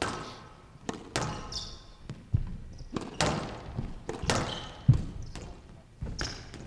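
A squash ball being struck by rackets and smacking off the walls of a glass court during a rally: about eight sharp knocks at irregular intervals of roughly a second, each echoing in the large hall.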